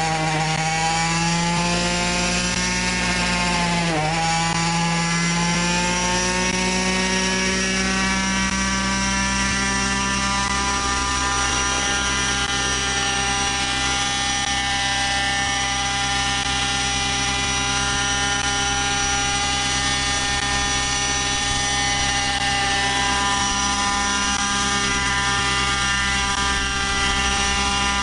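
Gas-powered RC helicopter's small two-stroke engine and rotor spooling up, the pitch climbing over the first several seconds with a brief dip about four seconds in. It then runs at a steady speed as the helicopter lifts off and hovers.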